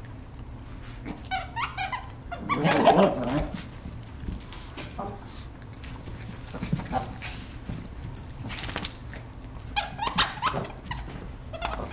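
Several Shih Tzus play-fighting, giving short dog vocal outbursts in scattered bursts, the loudest about three seconds in and another flurry near ten seconds.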